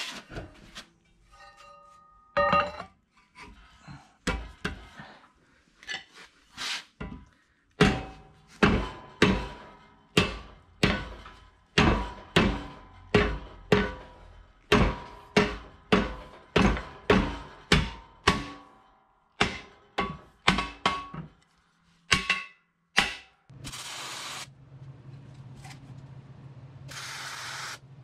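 Steel bracket being knocked down over a square steel arm: repeated sharp metal-on-metal knocks with a short ring, about two a second through the middle. Near the end a steady hum sets in with two short hissing bursts, the start of arc welding.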